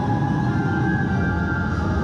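Ominous music with long held high notes over a deep low rumble.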